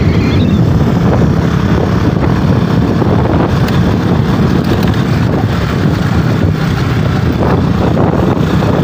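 KTM motorcycle running steadily on the move, with wind buffeting the microphone.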